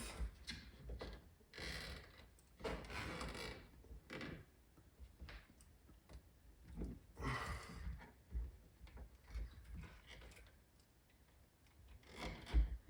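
Intermittent small clicks, taps and scraping rustles of pick tools being handled and worked against plastic trim and a wiring plug, with a few brief louder scrapes.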